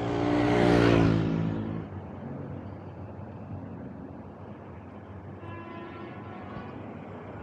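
A motor vehicle passes close by, its engine sound swelling to a peak about a second in and fading away, followed by steady street traffic noise with another engine faintly audible.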